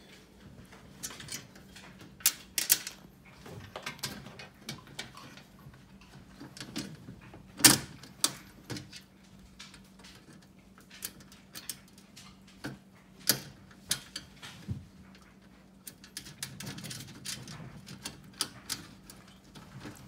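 Clicks and light clanks of sheet-steel typewriter-table parts and small screws being handled and fitted together, with the loudest clank about eight seconds in.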